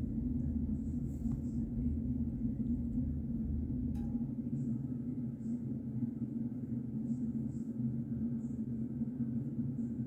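Domestic cat purring steadily as a continuous low rumble while being scratched under the chin.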